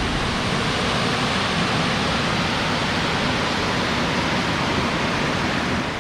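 Burgess Falls in flood: a large waterfall carrying a heavy flow of water, heard as a steady, loud rush of falling water. The sound fades out near the end.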